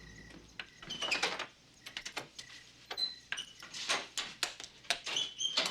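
An irregular string of sharp clicks and knocks, with a few short high squeaks in between.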